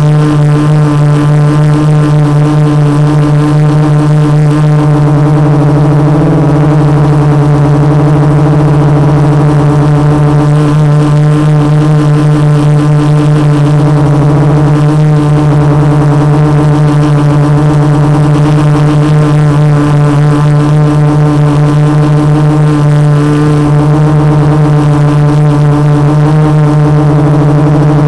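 The four MultiStar 2212 920kv brushless motors and 12-inch carbon-fibre props of a 450-size quadcopter, picked up by the camera on its frame as a loud, steady hum held at one pitch while the craft hovers.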